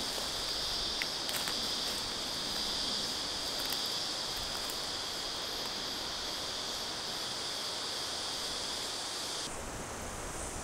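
Steady high-pitched chorus of insects droning in dry eucalypt bush. The brightest part of the drone drops away suddenly near the end.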